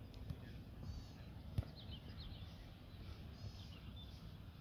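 Faint birds chirping over a low outdoor rumble, with one sharp thud of a football being kicked about one and a half seconds in.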